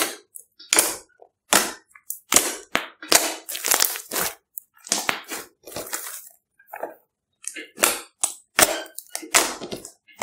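Fluffy slime being stretched, folded and poked by hand: a string of separate wet pops and crackles of trapped air, about two a second, with silence between them.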